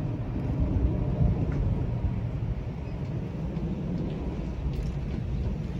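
Distant jet noise of a Lufthansa Airbus A330-300's Rolls-Royce Trent 700 engines as the airliner climbs away after takeoff: a steady low rumble.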